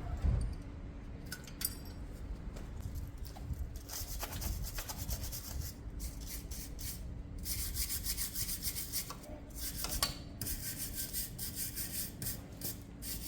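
Hand scrubbing on a metal part in three bursts of quick back-and-forth strokes with short pauses, to clean up its surface. There are a couple of sharp knocks among the strokes.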